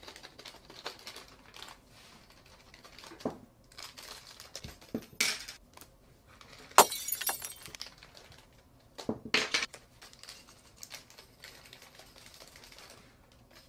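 Small clear plastic bags crinkling in short rustles as metal fidget rings are taken out, with light clicks of the rings set down on a felt mat, the sharpest click about seven seconds in.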